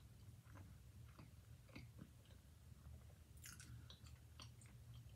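Faint chewing of a mouthful of veggie burger: a scatter of soft, irregular mouth clicks, one a little louder about three and a half seconds in.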